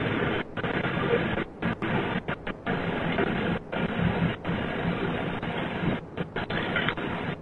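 Steady rough noise heard through a doorbell camera's microphone, muffled and without treble, cut out briefly again and again by dropouts in the audio.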